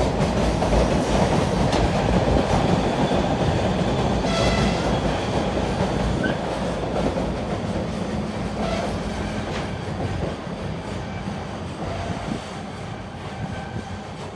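A train running past and slowly fading as it moves away, with a brief high tone about four seconds in.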